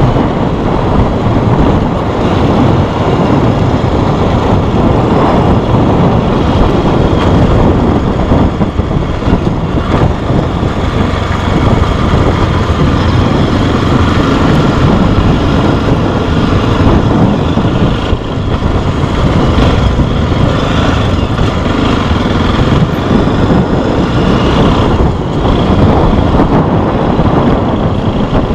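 Motorcycle riding along, its engine running steadily under a heavy, even rush of wind on the microphone.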